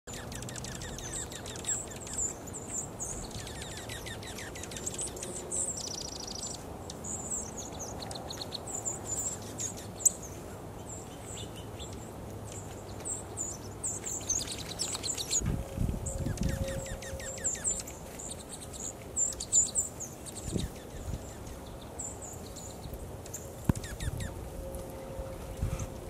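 Flock of small songbirds chirping: many short, high, thin calls and a few quick trills, scattered and overlapping, with a few low rumbles in the second half.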